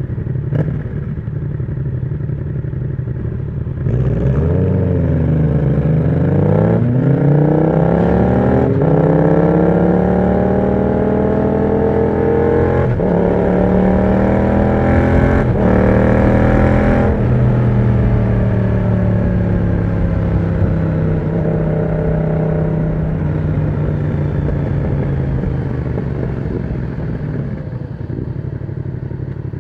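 Yamaha MT-07's parallel-twin engine through an aftermarket exhaust with the dB killer removed, on the move. It runs low and steady, then about four seconds in it accelerates hard, rising in pitch through a few quick drops that sound like upshifts, and about halfway through it rolls off with the note falling slowly.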